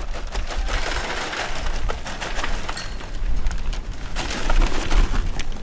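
Kingsford charcoal briquettes being poured from a paper bag into a metal chimney starter, a dense clattering of many small knocks in two stretches, over a low rumble of wind on the microphone.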